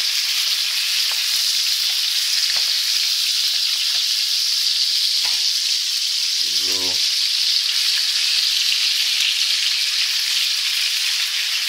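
Parma-ham-wrapped monkfish medallions sizzling steadily as they fry in hot oil and butter in a frying pan.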